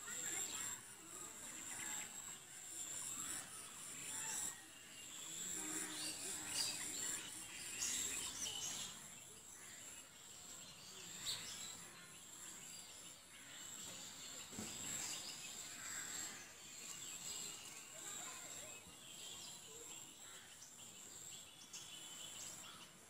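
Outdoor rural ambience: birds chirping now and then over a steady, high insect drone.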